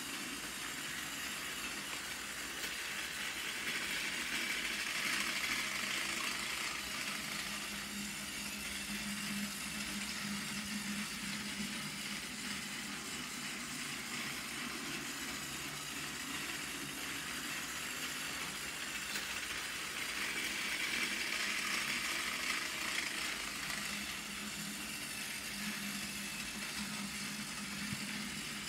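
Battery-powered Plarail toy train running on plastic track: a steady whir from its small electric motor and gears that swells twice as it goes round the loop.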